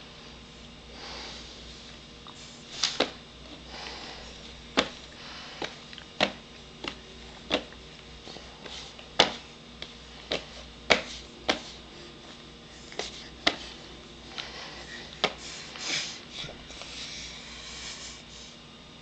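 Spoon-feeding a baby from a glass baby-food jar: irregular sharp clicks and knocks, roughly one a second, from the spoon, the jar and the plastic feeding-seat tray. Soft breathing and sniffing noises come in between.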